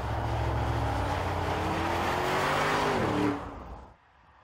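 Audi SQ8's 4.0-litre twin-turbo V8 accelerating hard, its note climbing steadily in pitch. A little after three seconds the pitch drops and the sound falls away abruptly to a faint hiss.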